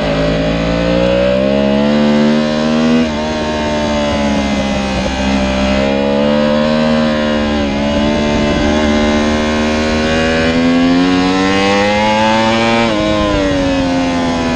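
Yamaha R1's crossplane inline-four engine at full race revs, heard from an onboard camera. Its pitch climbs steadily and dips sharply about 3 and 8 seconds in. Near the end it falls away as the bike brakes.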